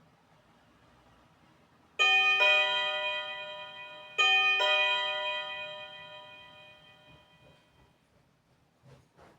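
TeckNet HWDO1816 wireless doorbell receiver playing its two-note ding-dong chime twice, each note ringing out and slowly fading. The chime sounds on the signal from the door push button, which has reached through the walls and floors.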